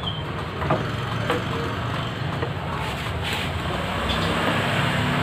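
Steady low rumble of a motor vehicle engine running nearby, growing louder over the second half. Over it, a few light clicks and taps of a licence plate being slid into a plastic plate holder.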